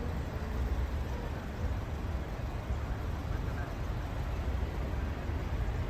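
Steady low rumble of a moving car heard from inside the cabin: engine and tyre noise.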